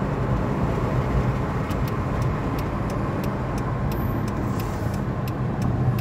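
Manifest freight train rolling past: a steady, heavy low rumble, with a run of faint sharp ticks from about two seconds in.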